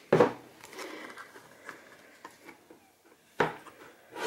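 A metal food can being handled while a finger lifts its ring-pull tab. There is a sharp knock just after the start, light clicks and taps, and another knock about three and a half seconds in.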